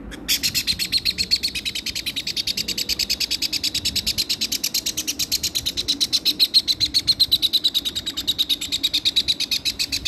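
Baby parrot chick calling in a rapid, even run of high chirps, about eight a second, starting and stopping abruptly.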